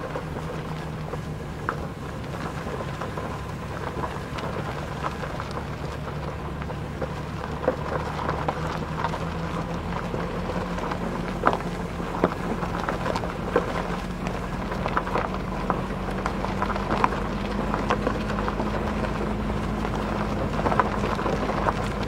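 Fiat Panda Cross engine running steadily at low speed, its note climbing slowly in the second half. Scattered crackles and knocks come from the tyres and body on the rough, muddy dirt track.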